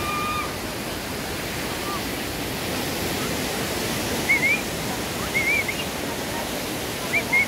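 River water rushing steadily over boulders in shallow rapids. A few short high chirps sound over it from about four seconds in.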